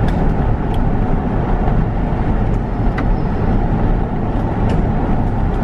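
Steady road and engine noise of a car being driven, heard from inside the cabin, with a few faint clicks.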